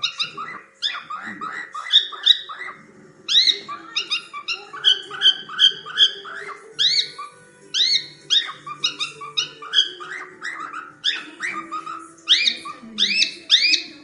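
Cockatiel chicks chirping: rapid, repeated short rising calls, several a second and overlapping, without a break.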